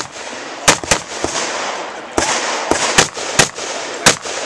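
Rifle shots being fired in a string at a shooting match: about eight sharp, loud cracks at uneven spacing, some in quick pairs.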